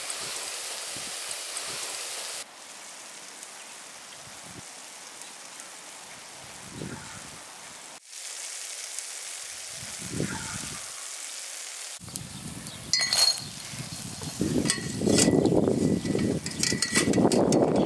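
Hot oil sizzling in a stainless steel pot as drops of batter fry. In the last few seconds a wire skimmer clinks and scrapes against the pot as the fried crumbs are scooped out, louder than the sizzle.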